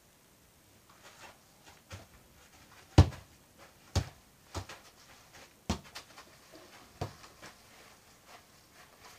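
A football on a training cord being kicked and bounced off the foot, a run of sharp thuds at an uneven pace of about one a second, the loudest about three seconds in.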